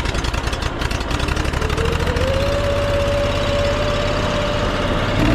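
Pressure washer's key-start gas engine running at low throttle just after starting, with even firing pulses. A steady whine rises about two seconds in and then holds level.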